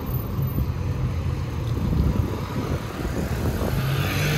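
Street traffic: car engines running close by, mostly a steady low rumble, with one engine's hum growing stronger near the end.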